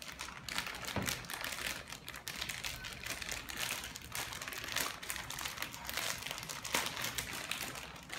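Packaging crinkling and rustling unevenly as it is handled and opened.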